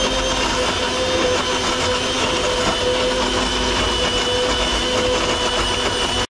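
Sujata mixer-grinder blending a shake in its jar, the motor running steadily with a constant whine.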